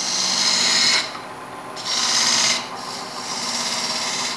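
Parting tool cutting into a soft green wood blank spinning on a lathe. It bites in two strong passes, each about a second long, then cuts more lightly near the end, over the lathe motor's steady hum.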